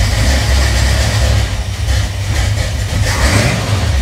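Old carbureted car engine running steadily just after a cold start, after standing unused for a long time.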